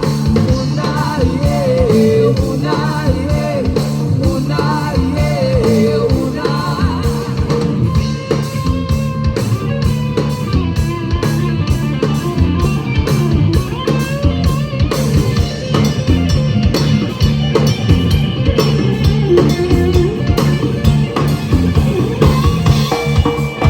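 Band-style music with a steady drum beat and guitar; a singing voice carries the melody for the first several seconds, then the instruments go on.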